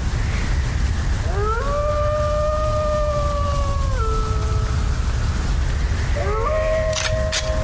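Two wolf howls: each rises and then holds a long steady note. The first drops in pitch and fades about four seconds in, and the second begins about six seconds in. A steady low rumble runs underneath, and two sharp clicks come near the end.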